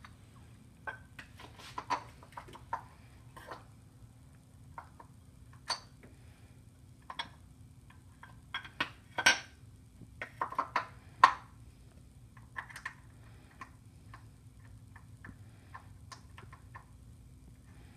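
Scattered light metallic clicks and clinks as a timing-belt pulley and its bolt are handled and fitted by hand at the water pump of a Subaru EJ25 engine, busiest about halfway through, over a faint steady hum.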